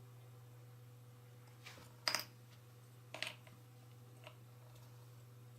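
Jigsaw puzzle pieces being handled on a table: a few short clicks and rustles, the loudest about two seconds in, another a second later and a faint one after that, over a steady low hum.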